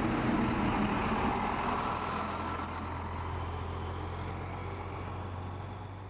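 Ambulance engine running with a steady low hum, louder in the first couple of seconds as it moves off and then easing to a quieter, even level.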